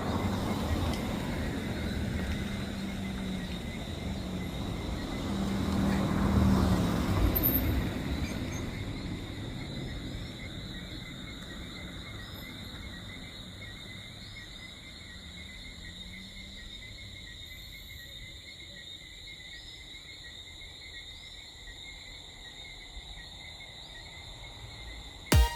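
A motor vehicle passes, swelling to its loudest about six to seven seconds in and then fading away, over steady high-pitched insect chirring that carries on throughout.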